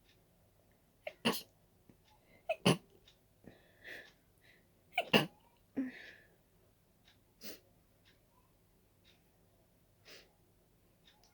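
A person sneezing in a fit brought on by a dust allergy: three loud sneezes in the first five seconds or so, the third the loudest, with quieter breathing sounds between and after them.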